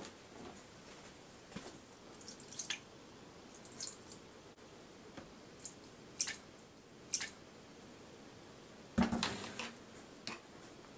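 Bottles of seasoning being handled over a frying pan: a scatter of light clicks and taps from caps and glass, with soft dripping of poured liquid. There is a louder knock, with a few smaller ones after it, about nine seconds in.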